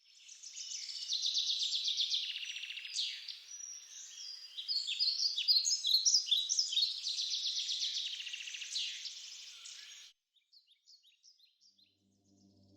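Songbirds singing, a busy mix of rapid trills and chirps that stops about ten seconds in, leaving a few faint chirps.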